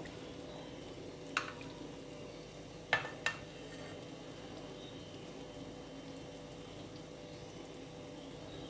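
Hot sugar syrup being poured over a tray of basbousa, a faint steady background. Three light clicks break it: one about a second and a half in, then two close together about three seconds in.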